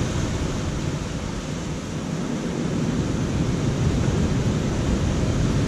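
Strong wind buffeting the microphone, a steady rumbling rush, with surf breaking on rocks beneath it.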